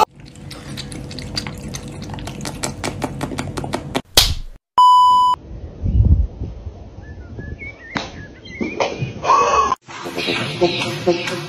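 Several short clips run one after another: first a run of quick sharp clicks, then a loud steady electronic beep lasting about half a second. A deep thump and scattered knocks follow, and music comes in near the end.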